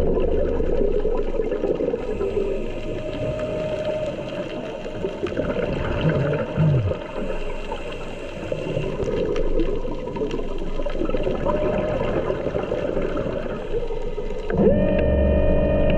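Underwater: a dense crackling hiss with scattered clicks. About a second and a half before the end, a diver propulsion vehicle's electric motor starts and runs with a steady whine.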